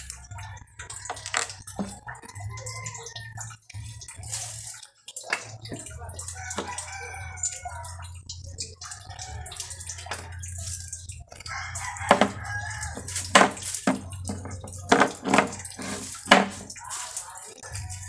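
Roosters crowing in the background, several drawn-out crows in the first ten seconds, over a low steady hum. From about twelve seconds in, a run of sharp knocks and taps, the loudest sounds, as small tools and a spool of nylon line are handled on a wooden table.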